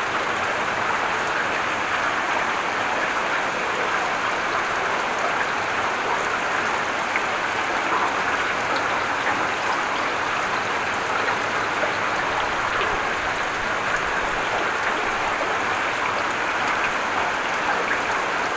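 Heavy rain falling steadily: an even, continuous hiss of drops with no thunderclap.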